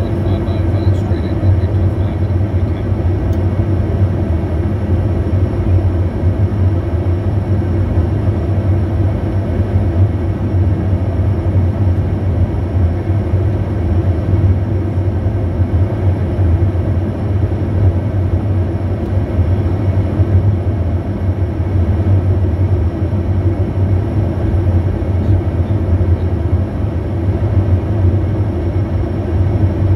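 Steady interior noise of a Bombardier Challenger 350 business jet on approach to land: its two Honeywell HTF7350 turbofans and rushing airflow, with a strong low hum underneath.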